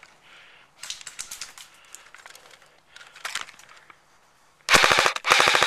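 Light rustling and crackling, then about four and a half seconds in an airsoft electric gun, the JG G3, fires on full auto: a rapid, even stream of shots with one short break.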